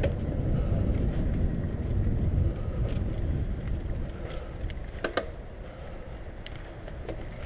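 Wind rumbling on the microphone while riding a mountain bike along a dirt trail, with a few sharp clicks and rattles from the bike, a cluster of them about five seconds in. The rumble eases off toward the end.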